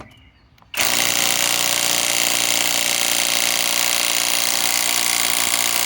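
Kobalt 24V Max 3/8-inch cordless right-angle impact wrench hammering steadily while it works to loosen a fastener. It starts about a second in and runs on without a break.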